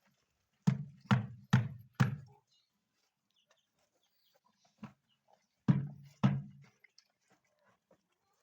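A series of sharp knocks: four about half a second apart, then a single one, then two more.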